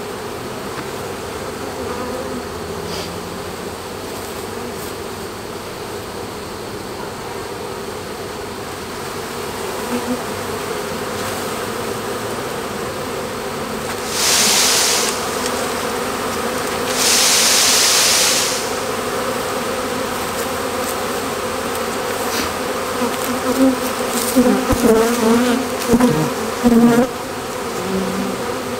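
Honeybee swarm buzzing steadily around a hive entrance as the bees are shaken in and march into the box. Two bursts of hissing noise come about halfway through, and louder passing buzzes near the end as bees fly close.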